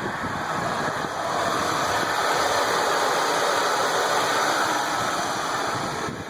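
A 1999 Ford Crown Victoria P71's 4.6-litre V8 runs with the AC on, and the start-up squeal has almost gone. A broad rushing noise swells over the first couple of seconds and drops off suddenly near the end.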